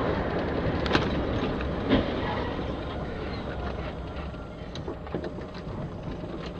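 Steady road and cab noise of a vehicle driving on a wet road. Two sharp bangs about a second apart near the start come as an SUV just ahead crashes off the road.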